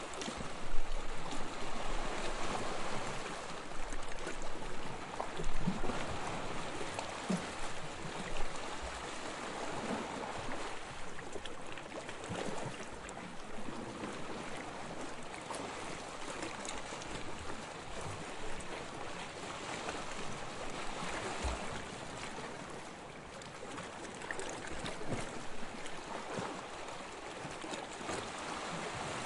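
Sea water lapping and splashing: a steady wash of small waves, with a few louder splashes in the first third.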